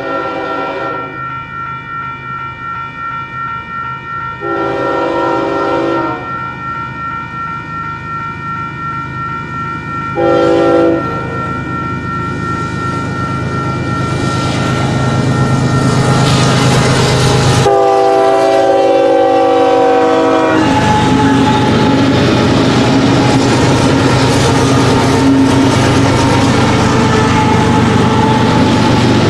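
Union Pacific freight train's diesel locomotives approaching and passing, with their air horn sounded three times: a blast about four seconds in, a short one around ten seconds, and a long one near eighteen seconds. Engine rumble and wheel noise build as the locomotives near, then loaded tank cars roll by with a steady rumble.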